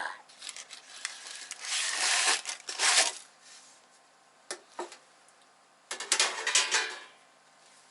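Rustling and scraping as the hot cookie sheet and its liner are handled, in two spells of a second or so each, with two light clicks between them.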